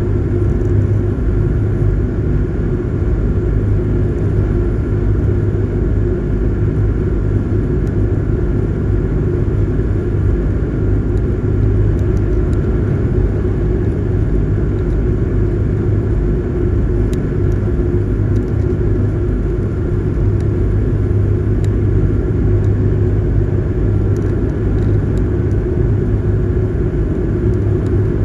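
Passenger ferry's engines running steadily at cruising speed, a continuous low drone with a few held tones, under a steady rush of water and wind, heard from on board.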